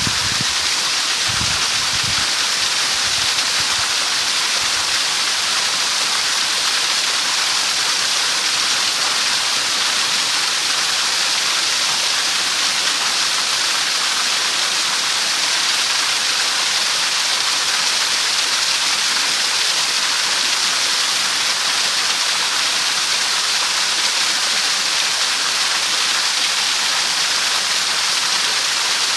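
A steady, even rushing hiss, with a few low thumps in the first few seconds.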